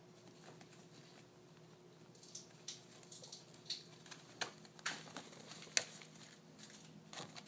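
Kitten pouncing on and scrabbling at a fabric pop-up cat tunnel: scattered rustles and light taps that pick up about two seconds in, over a faint steady hum.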